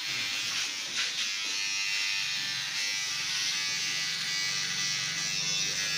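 Cordless electric hair clipper buzzing steadily as it trims short hair around a child's ear, with a short click about a second in.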